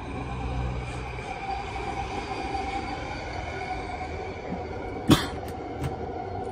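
A steady mechanical whine with a low hum underneath, and one sharp knock about five seconds in.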